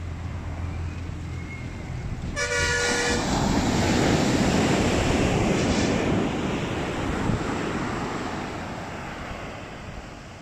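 A horn sounds once, for under a second, about two and a half seconds in. It is followed by a loud rushing noise that swells and then fades over several seconds.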